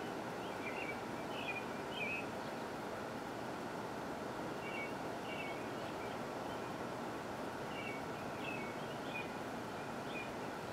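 Steady outdoor background noise with a bird's short, high chirping calls, coming in three brief clusters.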